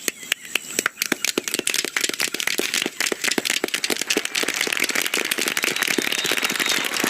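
Crowd applause that starts with a few scattered claps and within about two seconds builds into dense, continuous clapping, growing louder.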